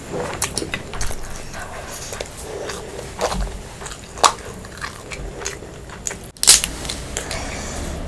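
Close-miked eating of crab curry, fried fish and rice: chewing and biting with irregular wet clicks and crunches, and one louder crunch about six and a half seconds in.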